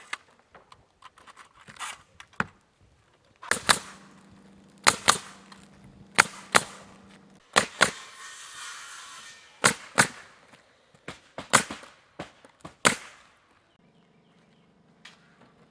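Nails being driven into 1x4 wooden furring strips on a roof: about a dozen sharp strikes at an irregular pace, several coming in quick pairs.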